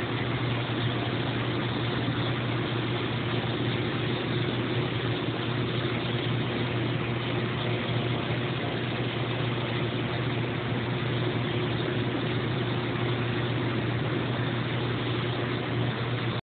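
Small gasoline engine on a homemade hydraulic log splitter running steadily at one speed, a constant drone with no revving.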